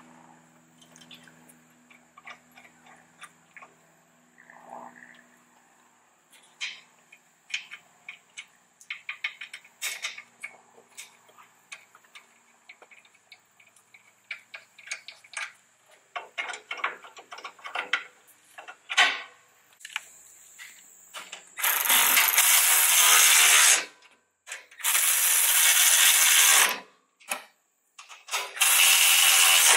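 Scattered metallic clicks and taps from hand tools at the top of a 2017 Toyota Tacoma's front strut, then a cordless power tool run in three bursts of about two seconds each near the end, driving the strut's top nuts.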